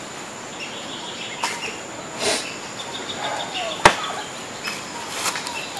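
Outdoor ambience: birds calling in short chirps and a quick trill over a steady high tone, with a few light clicks and one sharp knock a little under four seconds in, the loudest sound.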